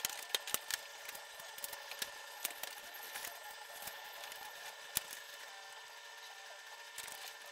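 Ford Escape A/C refrigerant line fittings being pushed back into the condenser by hand: scattered light clicks and taps, most of them in the first three seconds, over a faint steady hum.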